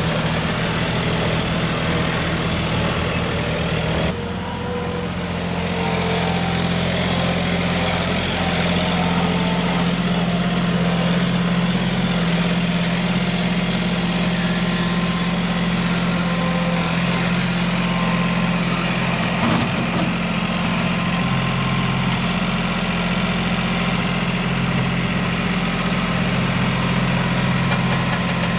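A motor or engine running steadily, with a dip and a small shift in its tone about four seconds in. There is one sharp knock a little before twenty seconds.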